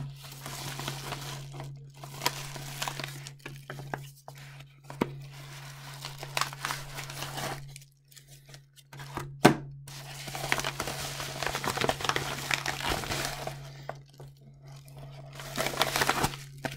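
Yellow padded paper mailer being torn open and crinkled by hand, in stretches of rustling, along with a stack of cards in plastic sleeves being handled. There is one sharp click about nine and a half seconds in.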